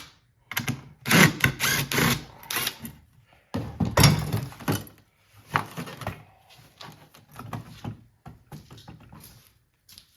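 Stainless steel well pump parts clattering and knocking as two screws are taken out and the pieces are handled, in irregular bursts, loudest in the first half.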